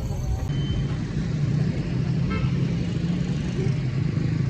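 Motorcycle engine running steadily, a continuous low drone with road noise.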